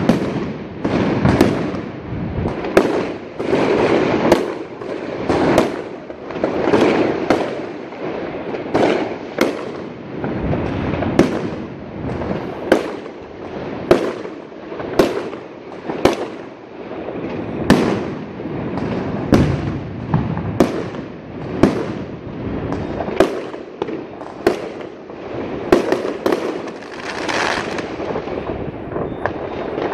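Aerial fireworks going off without a break: sharp bangs, roughly one or two a second, over a continuous din of more distant bursts.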